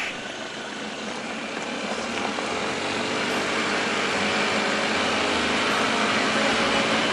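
Honda Zoomer 50cc scooter's single-cylinder four-stroke engine running while riding, mixed with steady wind and road noise. The sound grows gradually louder over the first few seconds, then holds steady.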